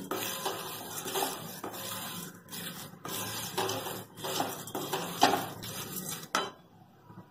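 Wooden spatula stirring dry poha (flattened rice flakes) as they dry-roast in a metal pan, with repeated scraping strokes against the pan and the rustle of the flakes. The strokes stop about a second before the end.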